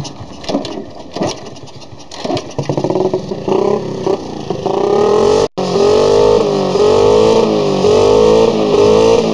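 A moped being kick-started, with a couple of seconds of irregular clattering kicks. The engine then catches and revs up. It cuts out suddenly for a split second about halfway, then runs on with the throttle blipped up and down repeatedly.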